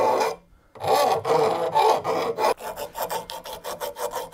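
Hand file rasping along the edge of a stainless steel spatula blade during final shaping, in repeated strokes with a short break just before the first second. About two and a half seconds in, the strokes turn lighter and quicker, about four or five a second.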